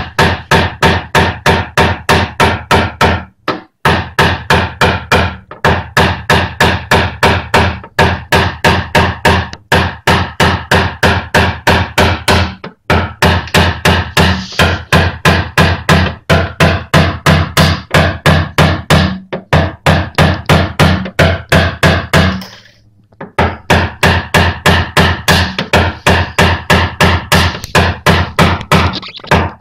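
A small hammer rapidly tapping a tap-down punch against a car's steel front wing, about three or four taps a second with a few short breaks. The blows knock down high spots around a crease to relax the metal before it is pulled out.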